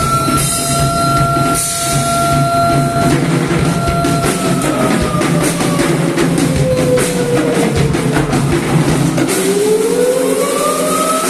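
Percussion trio playing fast, dense drumming. A siren-like tone wails over it: held high at first, sinking slowly from about four seconds in, then climbing again near the end.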